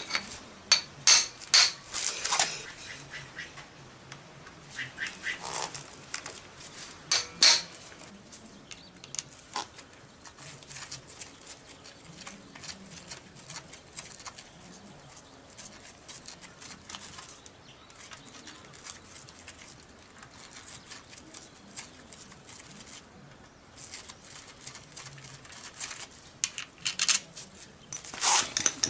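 Hand tools knocking and clinking against a motorcycle engine's side cover. There are a few sharp metallic knocks in quick succession about a second in and two more around seven seconds, then scattered light clicks and handling noises.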